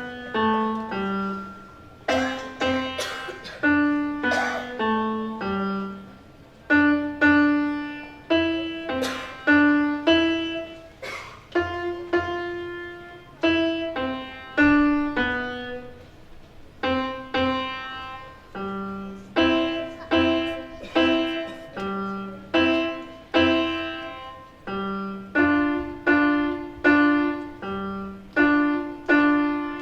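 Solo piano music: a melody of single struck notes, each fading after it is played, in a gentle steady pace.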